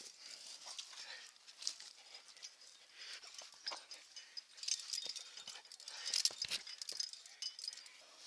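Irregular scrapes, rustles and small clicks of a climber moving up a rock crack, picked up by a camera worn on his body: hands, shoes and clothing rubbing on rock, and gear on the harness knocking. The clicks come thickest a little past the middle.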